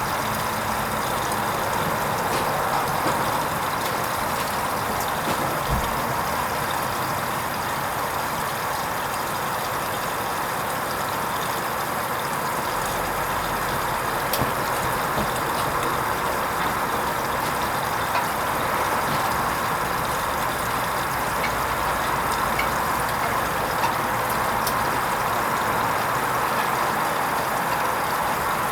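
Hoover Vision HVP16 front-loading washing machine taking in water at the start of a wool rinse: a steady rush of inflowing water.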